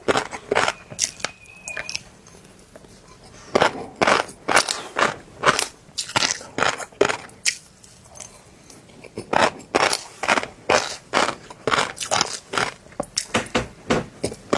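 Fish roe crunching and popping between the teeth, close-miked chewing: runs of sharp, crisp cracks, pausing briefly twice.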